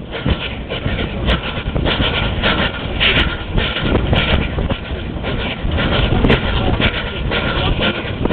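Steam tram running along its track, heard from its open top deck: a steady rumble and rattle with a regular beat about two times a second and a few sharp clicks.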